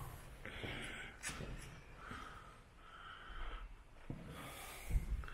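Quiet breaths close to the microphone, with soft footsteps and scuffs on a gritty, debris-strewn concrete floor and a few low bumps.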